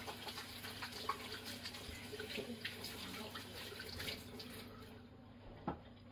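Kitchen tap running with hands being washed under it, water splashing into the sink; the water stops about five seconds in, followed by a single light knock near the end.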